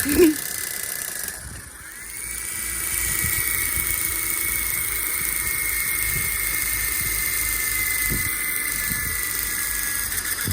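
A motor whining at a high, steady pitch. It drops away briefly about a second and a half in, then spins back up with a rising whine and holds steady.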